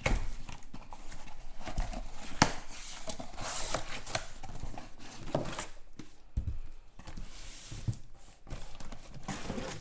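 Objects being handled on a tabletop: scattered clicks, knocks and rustling, with a sharp knock about two and a half seconds in.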